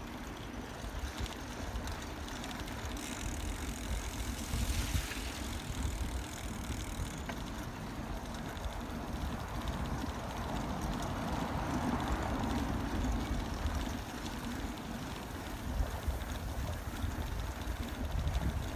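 Wind buffeting the microphone of a phone carried on a moving bicycle, a constant low rumble, with faint road noise under it.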